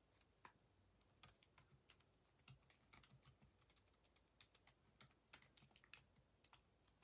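Very faint, irregular light clicks in short runs, several a second at times, like typing on a keyboard.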